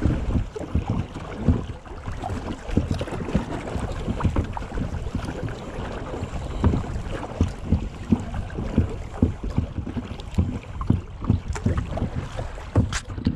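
Small boat on a river: water slapping and splashing against the hull with irregular knocks, over wind rumbling on the microphone.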